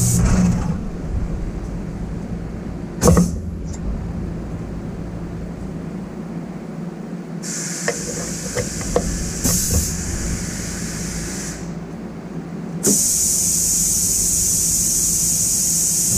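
Tool change on a Tormach PCNC 1100 CNC mill: a knock and several clicks as the tool holder is taken out of the spindle and a new end mill is fitted. Stretches of steady hiss come and go, with a loud steady hiss starting near the end.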